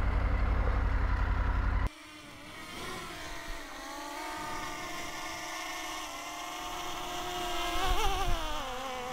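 Small quadcopter drone's propellers whining as it hovers close overhead, getting louder as it comes in. About eight seconds in the pitch wavers as the drone is caught by hand with its propellers still spinning. Before it, a steady low rumble cuts off suddenly about two seconds in.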